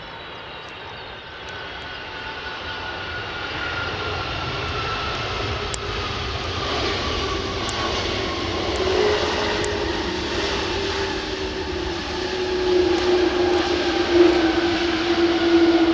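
Airbus A310-300 airliner's jet engines on the landing roll just after touchdown. It is a steady jet roar with a whine that glides slowly down in pitch, growing louder as the aircraft rolls toward the camera.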